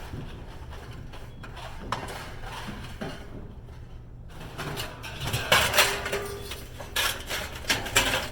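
Pieces of scrap metal clanking and clattering as they are handled and dropped, with a run of sharp knocks in the second half over a low steady hum.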